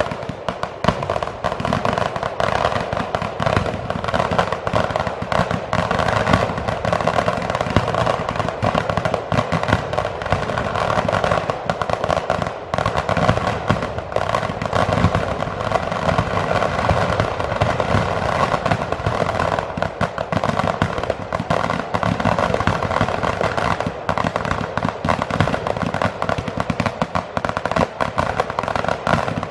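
A dense, unbroken barrage of fireworks and firecrackers going off, a rapid continuous crackle of bangs with no pause.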